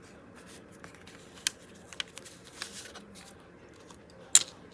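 Hands handling a card-and-fabric journal and small metal binder clips: scattered light clicks and taps, then one sharp, loud metal click near the end as a binder clip is taken off.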